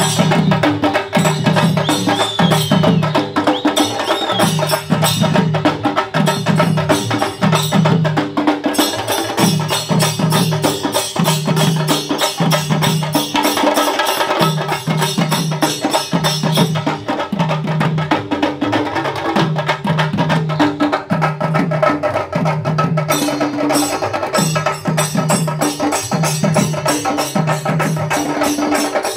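A procession drum troupe: several barrel drums are beaten with sticks in a steady, driving rhythm. Small hand cymbals jangle over the drums.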